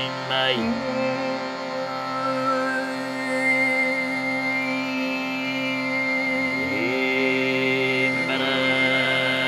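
Overtone singing over a steady drone: a low sung note holds, with a thin whistle-like overtone above it that picks out high notes and then settles on one long high tone. The low note slides to a new pitch a few times.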